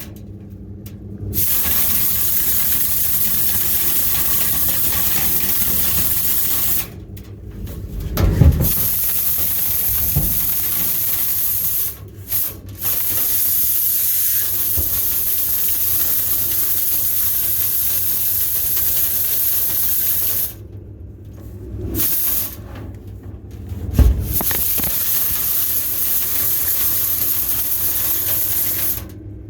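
Loud, steady hiss of rushing air from dryer-vent cleaning equipment. It cuts out briefly several times as it is switched off and on, with a few dull thumps.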